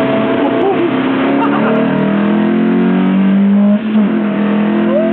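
Lotus Elise engine running hard on track, rising in pitch as it accelerates, with a brief drop in level just before four seconds in before it pulls on again.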